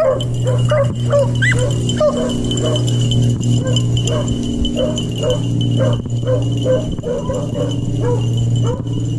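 Pack of beagles baying as they run a cottontail rabbit's trail: short, repeated calls, about two a second, over a steady low hum.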